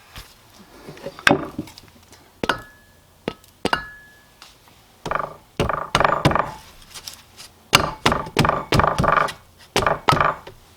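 Metal parts knocking and clinking in a series of sharp taps, some with a short ring, as a tight collar is worked on the Porsche 944 balance shaft. The collar is stuck on the shaft.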